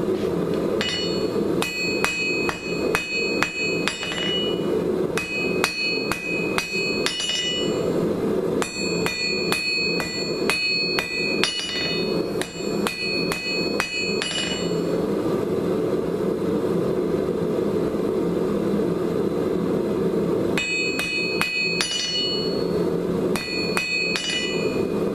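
Blacksmith's hammer striking red-hot coil-spring steel on an anvil, drawing out a cold chisel point: runs of ringing blows about two a second, broken by a pause of several seconds in the middle before two shorter runs. A steady low rushing noise runs underneath.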